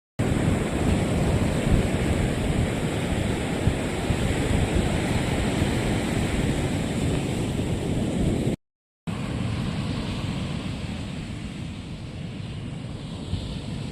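Ocean surf and wind on the microphone: a steady rushing noise heavy in the low end. The sound cuts out completely for about half a second near the middle, then carries on a little quieter.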